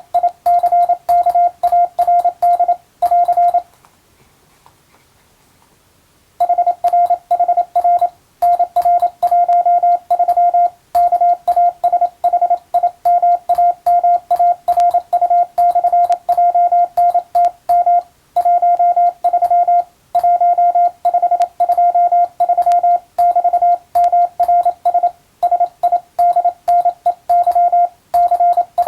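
Morse code (CW) sent as a steady tone of about 700 Hz, keyed on and off in quick dots and dashes, with one pause of about three seconds a few seconds in.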